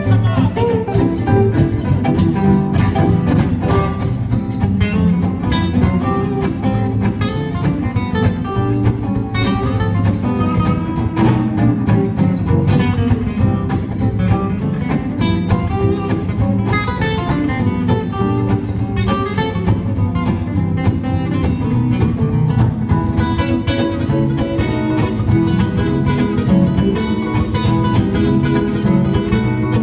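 Two flat-top acoustic guitars and an archtop guitar playing an instrumental tune together live, with quick runs of picked notes.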